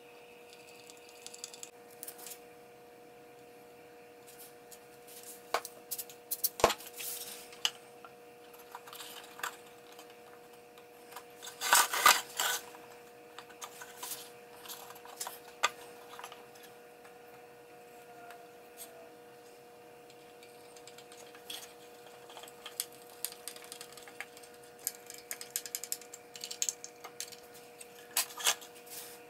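Small clicks, taps and scrapes from a screwdriver driving tiny hinge screws and from a walnut box being handled on a workbench. The loudest cluster of knocks comes about twelve seconds in, over a steady faint hum.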